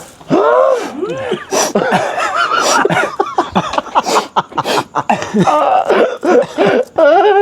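A person's voice making wordless sounds: coughing and laughing in short, repeated bursts.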